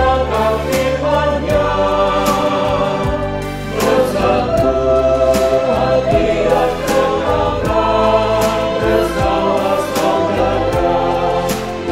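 Mixed choir of men and women singing a contemporary church anthem in harmony, backed by a band track with bass and a steady drum beat about twice a second.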